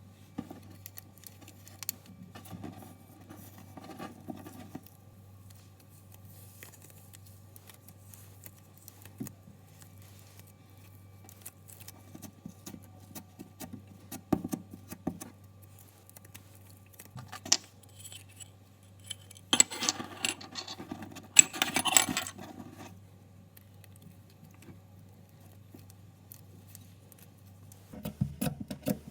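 Slime being handled and squished by hand: scattered sticky clicks and small pops, with a louder, denser crackling spell about twenty seconds in. A low steady hum runs underneath.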